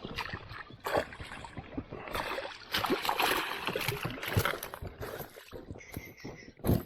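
Water splashing and sloshing in irregular bursts as a hooked pike thrashes near the surface while being brought in.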